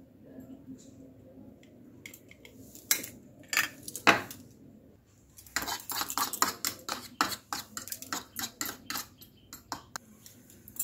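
A metal spoon clinking against a small bowl: a few separate knocks, then several seconds of quick, rhythmic clinking as it stirs.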